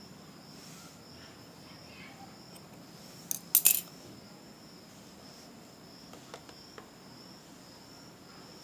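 Steel scissors clicking sharply, three quick metallic clicks about three and a half seconds in, followed later by a few faint ticks.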